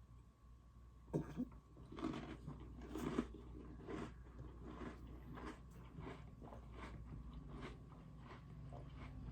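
Oreo cookies being bitten and chewed close to the microphone: a run of crisp crunches, the sharpest about a second in and around three seconds, then steadier, softer chewing.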